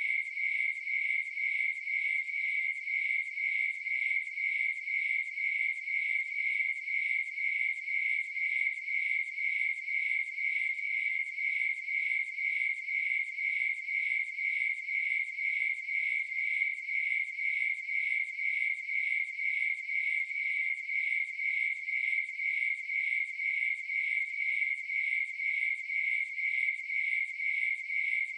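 Crickets chirping in a steady, even rhythm, a continuous high-pitched trill that never pauses.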